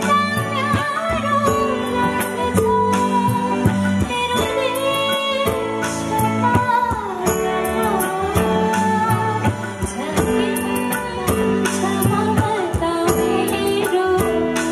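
Live band music with a woman singing a melody into a microphone, backed by tabla and bass guitar with a steady beat.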